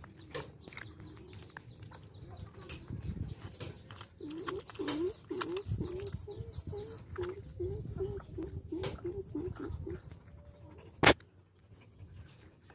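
Puppies suckling at their mother, with small wet clicks and smacks, while a bird calls a run of about a dozen short low notes in the middle. A single sharp knock near the end.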